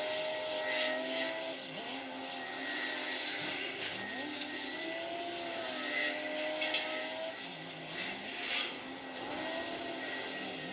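Heavy diesel engines of a wheel loader and a grab-bucket crane working sand, revving up and down in pitch over a steady low hum, with scattered knocks and scrapes.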